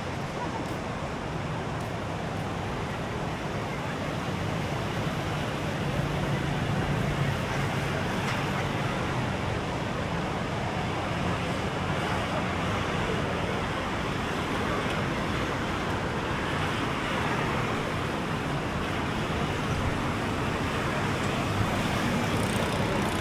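Steady outdoor noise of road traffic mixed with breaking surf, with a passing vehicle's engine hum about five to eight seconds in.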